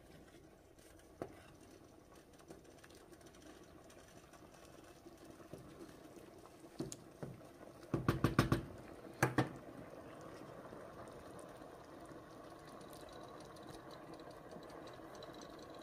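A pot of soup boiling on the stove with a steady bubbling hiss while a wooden spoon stirs it. About eight seconds in, a quick run of loud knocks and then a couple more: the wooden spoon striking the pot as it is lifted out and set down.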